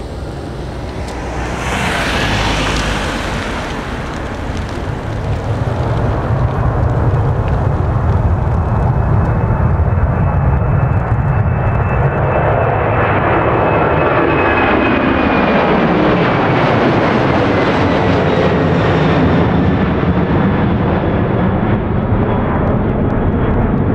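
Boeing 767-300 airliner's twin turbofan engines at takeoff thrust, the roar growing louder over the first several seconds as it lifts off and climbs toward the listener. About halfway through, the pitch sweeps steeply downward as the jet passes overhead, and the loud roar carries on as it climbs away.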